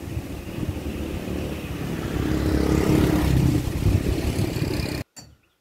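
A motor vehicle's engine running, growing louder over the first few seconds. It cuts off abruptly about five seconds in.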